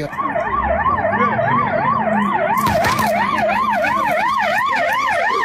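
Emergency vehicle siren in a fast yelp, its pitch sweeping up and down about three times a second, with a low rumble beneath.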